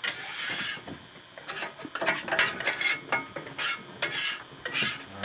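Rapid, irregular scraping strokes, several a second, a rasping sound of something hard drawn across a surface.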